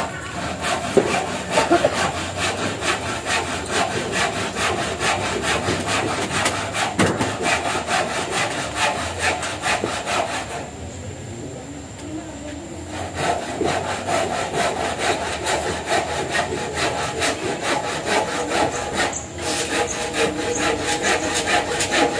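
Handsaw cutting wood in quick, even back-and-forth strokes, pausing briefly about halfway through.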